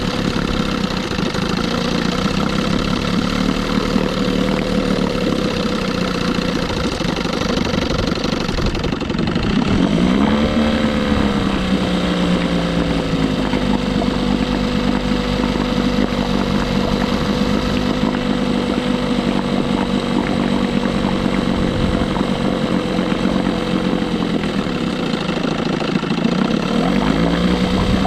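1976 Johnson 6 hp two-stroke outboard motor running steadily. Its speed dips and then picks up about a third of the way in, and rises again near the end.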